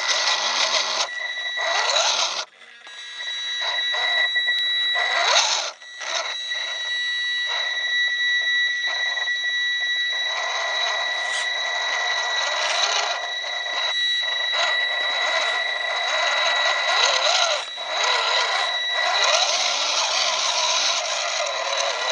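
Team Losi 1/18-scale RC rock crawler's small electric motor and gears whining as it drives, rising and falling with the throttle, over a steady high electronic tone, with scraping of tyres and chassis over cloth. The sound drops out briefly a few times when the throttle is let off.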